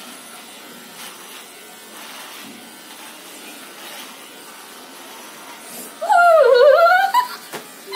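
Electric beard trimmer buzzing faintly as it cuts through a beard. About six seconds in, a loud drawn-out vocal cry of about a second sounds over it, its pitch dipping and then rising.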